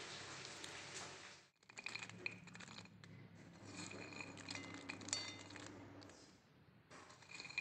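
A few faint clinks and light knocks of cut pigeon pea pods being handled on a ceramic plate. The clearest clink comes about five seconds in and rings briefly.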